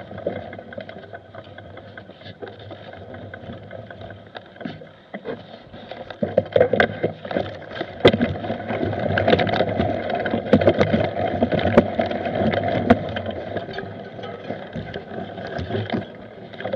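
A mountain bike riding fast down a rough forest dirt trail, heard from a camera mounted on the bike or rider: a steady rush of wind on the microphone with the bike rattling and knocking over bumps. The rattling gets louder and busier for several seconds in the middle.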